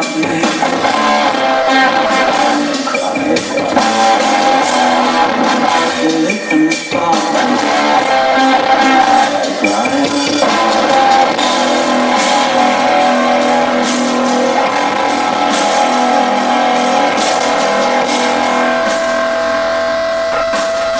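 Live industrial rock band playing: distorted electric guitar and drums, loud, with little bass, as picked up by an audience camera. A steady held note comes in near the end.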